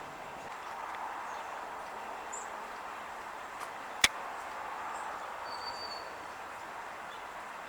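Steady outdoor background hum with a couple of faint, brief high bird chirps and one sharp click about four seconds in.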